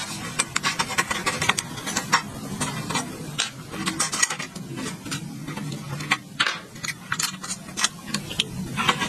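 Irregular clicks, taps and scraping of hand tools on the metal parts of an old electric water pump motor under restoration, with a faint low hum underneath.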